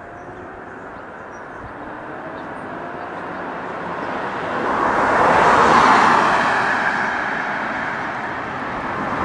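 A car approaching and passing by, growing louder to its peak about six seconds in and then fading.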